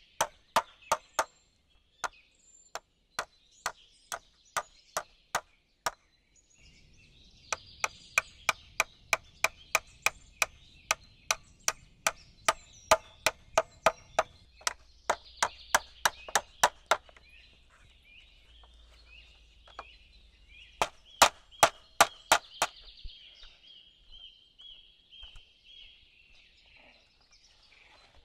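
A blade chopping in quick repeated strokes: about two a second at first, then faster runs of about three a second broken by short pauses, the hardest strokes near the end.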